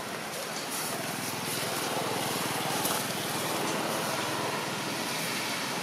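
An engine running steadily, with no break and a slow rise in loudness toward the end.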